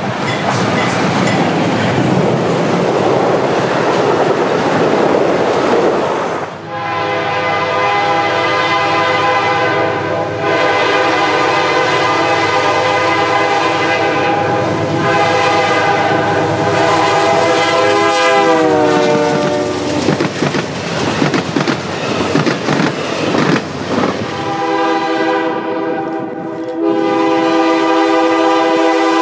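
Diesel passenger train going by: first the rumble of the locomotive and wheels, then the locomotive's air horn sounding one long chord for about twelve seconds, warning for a grade crossing, its pitch falling as it passes. Wheels clatter over the rail joints, and the horn sounds again near the end.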